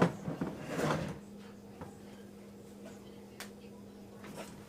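Handling noise of computer parts being worked on: a knock right at the start, a rustling scrape about a second in, then a single sharp click later on, over a steady low hum.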